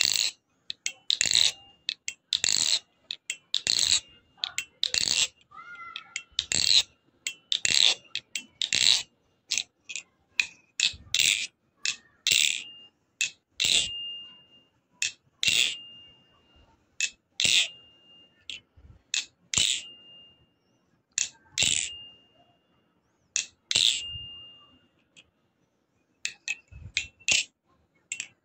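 Armed Shark Squidtrainer V4 balisong trainer being flipped: its metal handles and trainer blade clack together in sharp, irregular clicks, many leaving a short metallic ring. A brief pause near the end.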